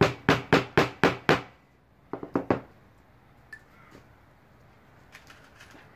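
A hammer driving a nail into a wooden board: six quick, even blows at about four a second, then three lighter taps about two seconds in.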